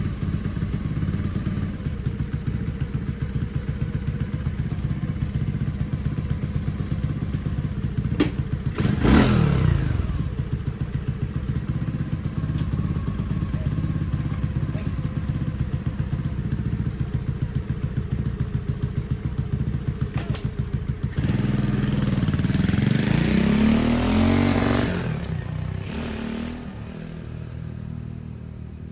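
Lifan 125 single-cylinder four-stroke engine in a Honda CT70 minibike idling with an even beat, with a brief loud burst about nine seconds in. About twenty-one seconds in it revs up, rising in pitch as the bike pulls away, then fades as it rides off. The carburettor has just been jetted with a 100 main jet.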